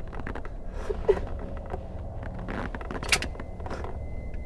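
Handling noises inside a car: a series of creaks and small clicks as hands work an object, with a sharp click just after three seconds.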